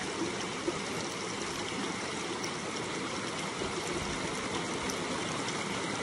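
Shallow mountain stream flowing steadily over rock bedrock around a wader's bare feet.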